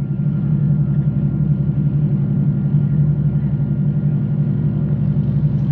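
A passenger train running at speed, heard from inside the carriage: a steady, loud low rumble of engine and running gear, with a faint steady whine above it.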